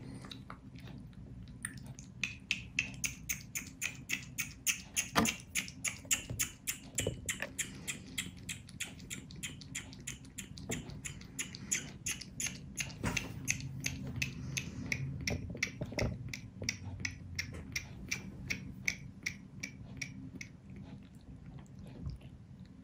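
Kitten suckling at a milk bottle's nipple: rhythmic wet sucking and smacking clicks at about three a second, as it drinks kitten replacement milk.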